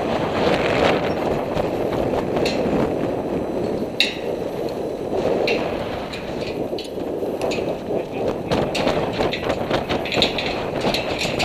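Steady wind noise rushing on the microphone, with a few sharp metallic clicks and knocks of climbing hardware against the steel tower, one about four seconds in and a cluster near the end.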